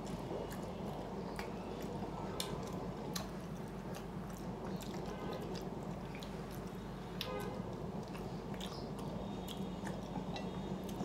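Close-up chewing: a person eating rice and hilsa fish, with many small wet mouth clicks and squishes over a faint steady hum.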